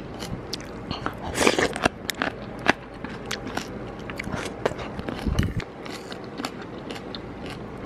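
Close-up eating sounds: chewing and crunching of pickled Thai eggplant (cà pháo) with rice and soup, made up of many short crisp crackles and a few denser crunches. Small clicks of a metal spoon against the bowl are mixed in.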